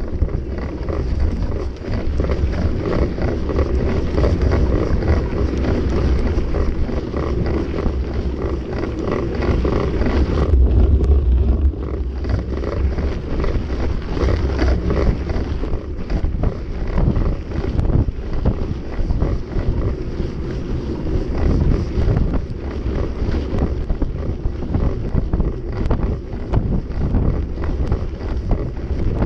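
Wind buffeting the microphone of a camera on a cross-country mountain bike riding a dirt and gravel track, with steady tyre rumble and frequent rattles as the bike goes over bumps.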